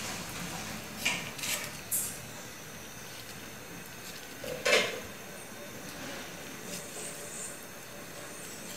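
Boiled potatoes being peeled by hand over a ceramic plate, with a few light clicks in the first two seconds and one louder knock of crockery nearly five seconds in.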